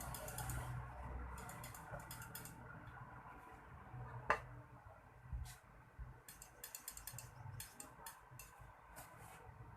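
Faint clicking and light metallic rattling of small parts being handled while a clothes iron's thermostat and wiring are worked on. There are runs of rapid fine clicks and one sharper click about four seconds in.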